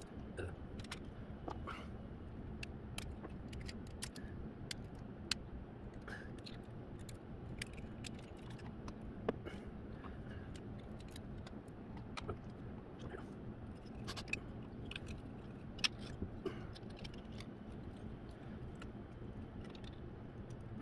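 Irregular light clicks and clinks of small screws, tools and plastic parts being handled while a robot leg is taken apart, over a steady low background hum.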